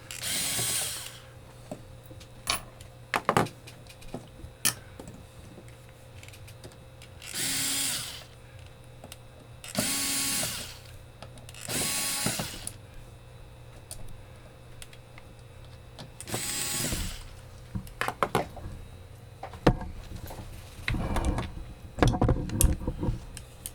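Power drill run in five short bursts of about a second each, while a gumball-machine mech is being taken apart. Scattered metal clicks and knocks of parts being handled fill the last few seconds.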